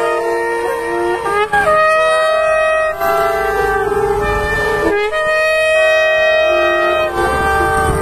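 Several shofars blown at once in long, overlapping held blasts at different pitches, with brief dips between blasts.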